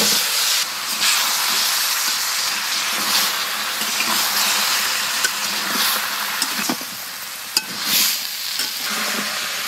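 Chopped bottle gourd and potato tipped into hot oil and spice paste in a kadai, sizzling steadily, with a surge of sizzle as the pieces land. A metal spatula stirs and scrapes the pieces, clicking against the pan a few times near the end.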